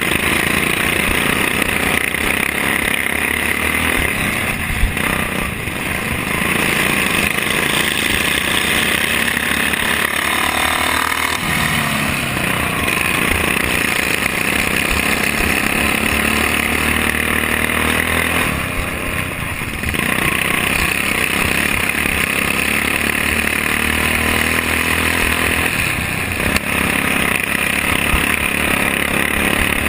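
Racing lawn tractor's Briggs & Stratton Vanguard engine running loud at high revs, heard close up from onboard. The revs drop briefly and climb back several times, most clearly about a third of the way in.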